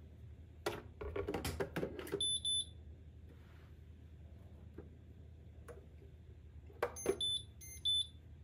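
The coffee pot knocking and clattering as it is set into a Karaca Hatır Hüp Turkish coffee machine, followed by short high electronic beeps from the machine. Near the end a control button clicks and the machine beeps again as its Közde Turkish coffee program is started.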